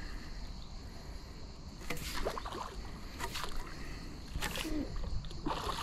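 Water splashing in about four short bursts roughly a second apart, from a hooked carp thrashing at the surface while it is played on a pole and elastic, over a low steady wind rumble on the microphone.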